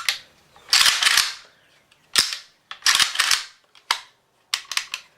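Sharp metallic clacks and snaps of an AK-47's action being worked in a function check: the bolt carrier is racked back and let slam forward, and the hammer snaps as the trigger is pulled, with a quick cluster of clicks near the end.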